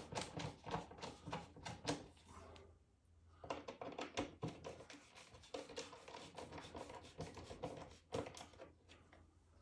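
Faint, irregular clicking and scraping of hands working a smoke detector's plastic mounting base against a ceiling electrical box, a few clicks a second with a short pause about three seconds in.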